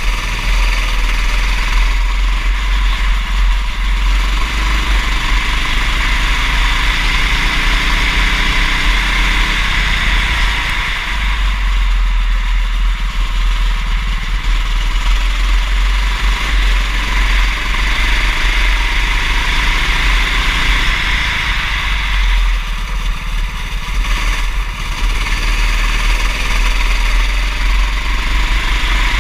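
Go-kart engine running hard during a race, its pitch rising and falling as it revs up and eases off, with lulls about a third of the way in and again past two-thirds, over a steady low rumble.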